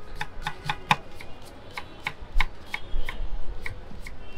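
A street-food vendor's metal utensils clinking in quick repeated strikes, about three a second, several with a short metallic ring, as food is prepared.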